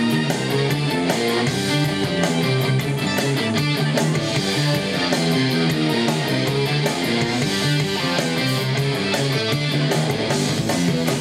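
Guitar-led rock music with a steady beat, played back through Technics SB-F1 mini monitor speakers.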